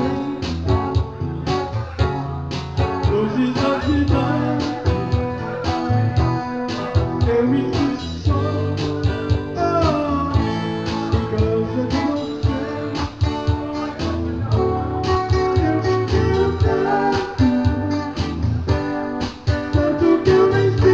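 Live band music: guitar played over a steady, regular beat.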